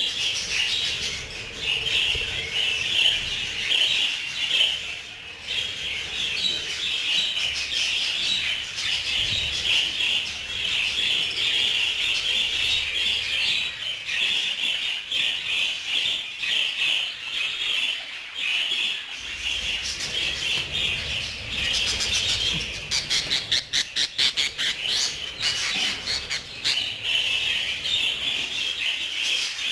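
A flock of budgerigars chattering and warbling without a break, mixed with squawks. About three-quarters of the way through, a rapid run of sharp ticks lasts about three seconds.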